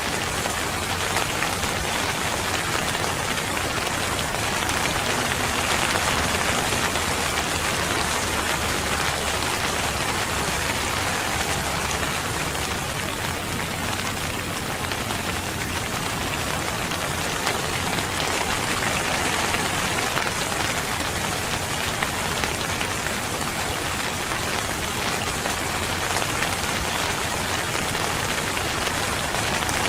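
Steady heavy rain falling on a surface, a dense even patter.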